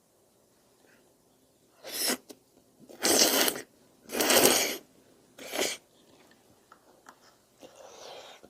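Four loud slurps of udon noodles, each about half a second long, the middle two the longest. Softer chewing follows near the end.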